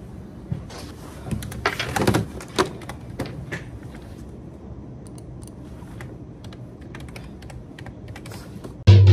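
Typing on a computer keyboard: irregular clacking keystrokes, louder and quicker in the first few seconds, then lighter tapping.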